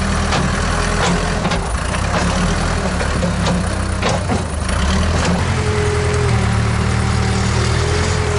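Case 580K backhoe loader's diesel engine running steadily under load as the front bucket digs into dirt and lifts it, with a few knocks about halfway through and a thin whine in the second half as the loader arms raise the bucket.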